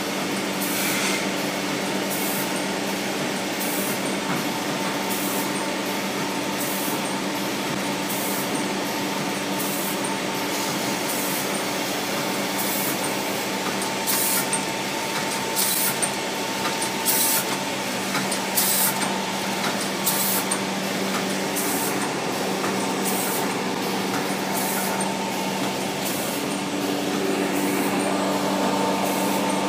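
Rotary premade-pouch powder packing machine running: a steady motor hum with short hisses about once a second as it cycles through the pouches.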